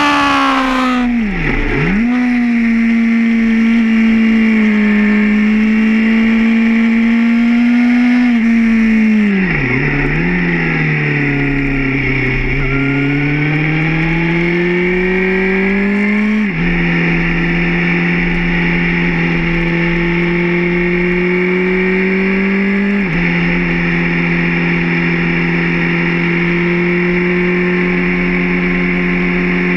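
Suzuki GSR 750's inline-four engine heard from the rider's seat on track. Near the start, and again about a third of the way in, the revs dip sharply and recover as the rider slows for corners. After the second dip the bike pulls hard in second gear, then shifts up twice, about halfway and about three quarters of the way through. Each shift is a sudden drop in pitch, followed by the revs climbing again in the higher gear.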